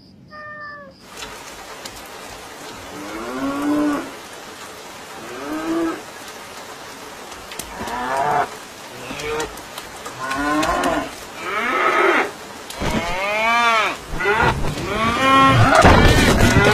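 Cows mooing again and again, the calls coming closer together and overlapping toward the end as more cows join in, over a steady hiss of rain. A short high squeak at the very start.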